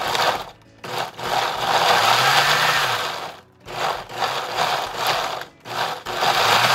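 Countertop blender pulsed on and off several times, its motor whirring in short runs as the blade chops chunks of tomato, fresh jalapeño and dried chiles. The blade is still catching the pieces before the mix turns smooth.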